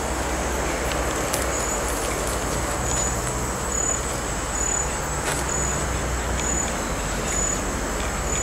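Night insects: a steady high drone with a short chirp repeating about once a second, over a steady low rumble like distant traffic.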